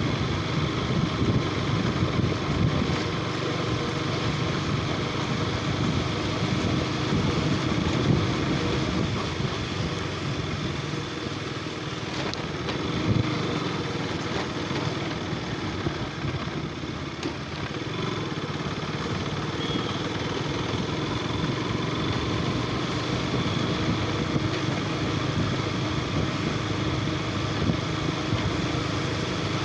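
Motorcycle engine running steadily at a constant pace with road noise.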